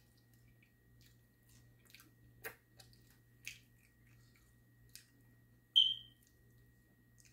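Close-up eating sounds from a man eating sauce-covered chicken wings with his hands: faint lip smacks, finger-licking and chewing clicks. About six seconds in comes one short, high-pitched beep, the loudest sound here.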